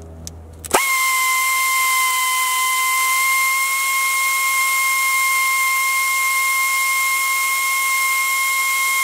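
Angle drill starting up about a second in and running at a steady, unchanging whine with a hiss, as it bores a pilot hole into the centre of a broken exhaust manifold stud for a stud extractor.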